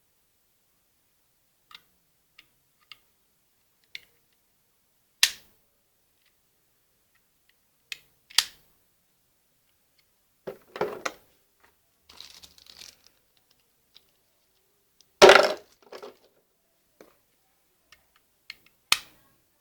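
Packaging and small plastic parts being handled: scattered clicks and knocks, with a short crinkly rustle about twelve seconds in and the loudest knock about fifteen seconds in.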